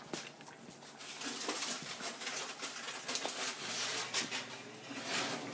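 Thick tomato sauce simmering in a saucepan, with a steady hiss and many small irregular pops as it bubbles and reduces.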